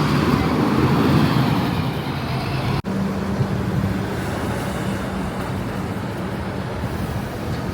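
Steady road traffic noise with a low engine hum, briefly dropping out about three seconds in.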